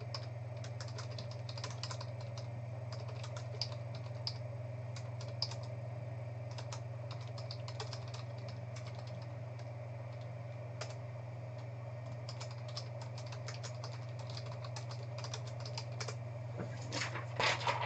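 Typing on a computer keyboard: scattered key clicks, with a quicker flurry near the end, over a steady low hum.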